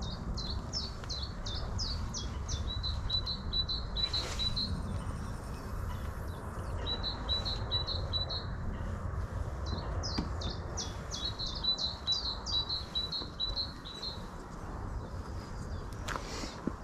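A songbird singing three phrases, each a run of quick down-slurred notes going into a steady trill, over wind rumble on the microphone.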